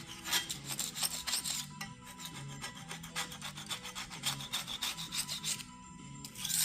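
Rapid back-and-forth scrubbing strokes on a part being cleaned, several a second, with brief pauses about two seconds in and near the end, over background music.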